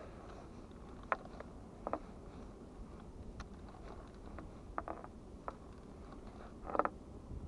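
Spinning reel on a surfcasting rod being cranked by hand to wind in line after a cast, with soft irregular clicks and knocks from the reel and handling, the loudest near the end, over a steady low background hiss.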